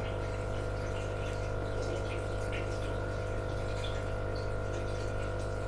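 Aquarium pump running with a steady electric hum and a soft wash of moving water.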